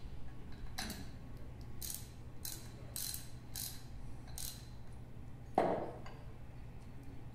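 Grease plug being screwed into the high-speed shield of a Sumitomo Cyclo gearbox: a run of short metallic clicks about one every half second, then a louder knock near the end.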